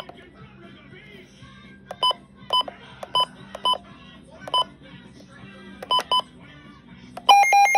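Midland NOAA weather radio's key beeps: about eight short electronic beeps as its menu buttons are pressed, at uneven intervals. Near the end the radio's alert test starts, a loud, rapidly pulsing alarm beep.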